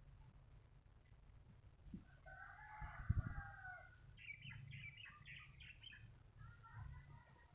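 A rooster crowing faintly once, a drawn-out call of about a second and a half, followed by a quick run of short, higher-pitched calls. A dull low thump comes about three seconds in.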